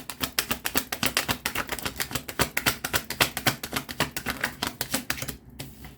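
A deck of tarot cards being shuffled by hand: a rapid, even run of light card clicks, several a second, that stops about five seconds in.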